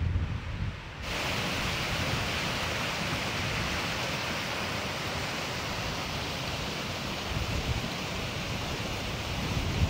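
Wind rumbling on the microphone for about a second, then an abrupt change to a steady rush of flowing water.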